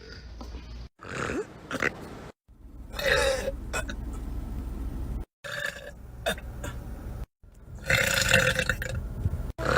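A girl's burps, several in a row from separate short clips, each one cut off abruptly; the loudest and longest comes near the end.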